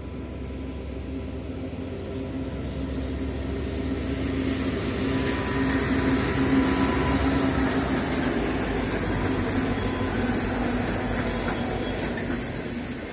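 Freight train hauled by diesel locomotives passing close by: the engine drone builds as the lead locomotives go past about six seconds in, then eases as the wagons roll by.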